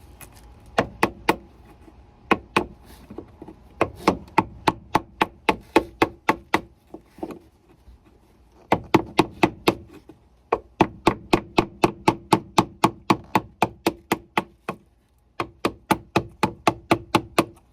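A wood chisel being struck over and over to chop away an edge of a plywood drawer piece: runs of sharp knocks, about four a second, broken by short pauses.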